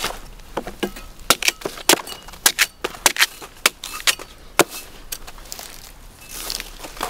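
A blade chopping into coconut tree material: a quick, irregular run of sharp cracking strikes, about a dozen in four and a half seconds, followed by a couple of seconds of quieter rustling.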